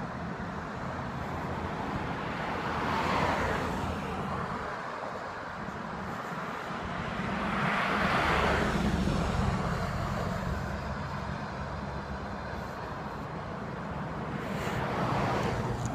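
Road traffic: a steady low rumble with three vehicles passing, about three seconds in, about eight seconds in and near the end, each swelling and fading away.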